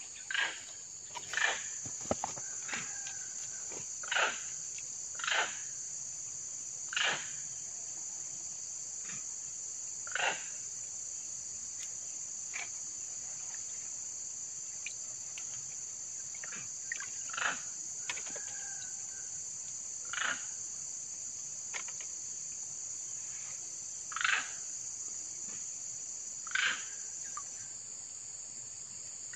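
A steady high-pitched drone of insects, with short louder sounds every few seconds from hands sloshing the water in a small muddy hole.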